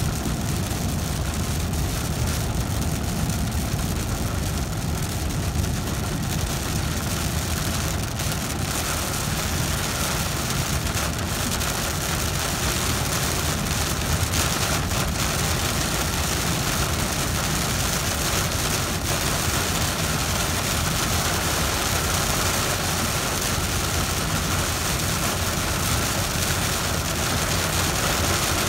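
Heavy rain pelting the roof and windshield of a truck driving on a wet highway, over the steady low rumble of its engine and tyres. The rain grows louder toward the end.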